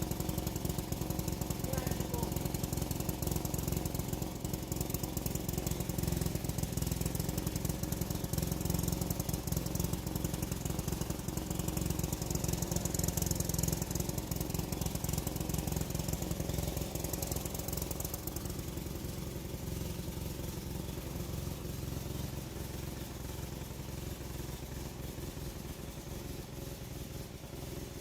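Petrol lawn mower engine running steadily under load, growing a little fainter over the last third as it moves off.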